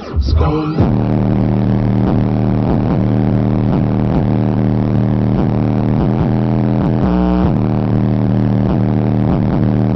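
Kicker Solo-Baric L7 12-inch subwoofer playing a hip-hop beat loud, the bass dominant and steady from about a second in, with a brief break in the pattern near the middle.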